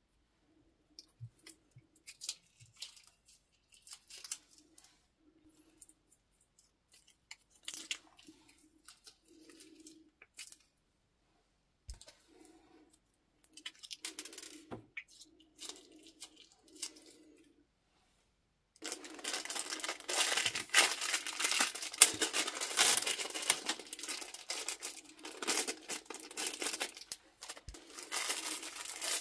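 Small zip-lock plastic bags being opened and squeezed out by hand: sparse rustles, clicks and soft squelches of liquid. About two-thirds through, continuous loud crinkling of a plastic bag being handled takes over.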